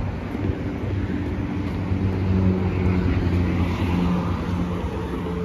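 Road traffic on the highway below: a steady rumble of vehicles, with one engine's drone swelling louder through the middle as it passes.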